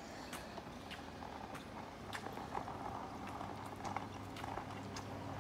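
Footsteps walking on a concrete path, about two steps a second, over a steady low hum.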